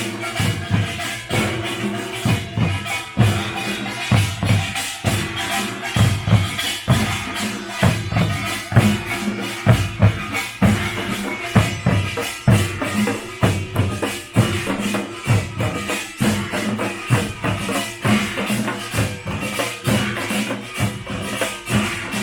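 Live pungmul, Korean folk percussion, played in a busy, driving rhythm: drums beating with metallic gongs clanging over them.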